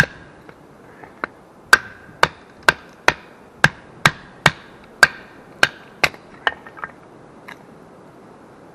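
A knife being batoned into split maple: a baton knocking on the knife's spine about twice a second, each knock with a short ring, a dozen strikes, then a few lighter taps after about six seconds.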